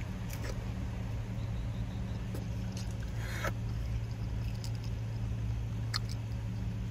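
Steady low hum of a car's idling engine heard from inside the cabin, with a few faint clicks and a short rustle about three and a half seconds in.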